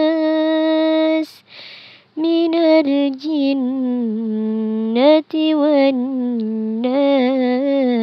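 One voice chanting Quran recitation in a melodic style, drawing out long wavering notes. There is a short pause with a breath about a second and a half in before the chant resumes.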